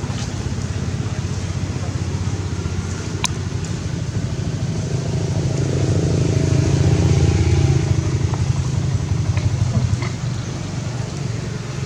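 A motor vehicle's engine running steadily nearby, swelling louder from about six to ten seconds in and then easing back. There is a single sharp click about three seconds in.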